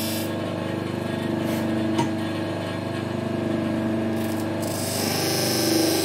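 Bench grinder running steadily with a spinning paper wheel impregnated with 0.5-micron diamonds, honing a knife edge. A high hiss of the blade on the wheel stops just after the start and returns near the end, with one light click about 2 seconds in while the knife is off the wheel.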